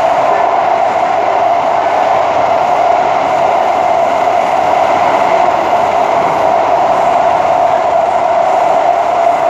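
Interior running noise of an SMRT Kawasaki-Sifang C151A metro train at steady speed: a constant mid-pitched whine over an even rumble and rush, with no change in pitch or level.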